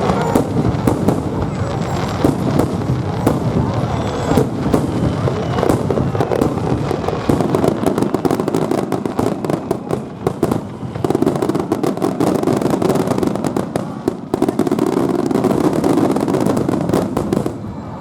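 Fireworks display going off in a rapid run of overlapping bangs and crackles, with crowd voices underneath.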